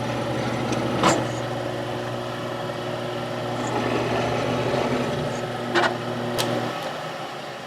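Milling machine running while its end mill cuts a groove in a brass plate, a steady motor hum with a few sharp clicks. The hum stops near the end as the machine is switched off.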